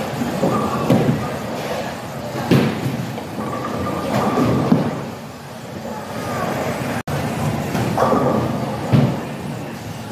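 Bowling alley noise: the steady rumble of balls rolling on the wooden lanes, with several sharp knocks and background voices.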